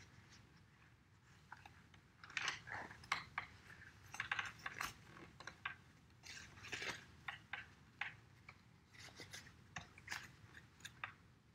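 Wiping paint off the plastic mixing lid of a watercolour paint box: irregular short, faint scratchy rubs with small ticks and taps, starting about two seconds in.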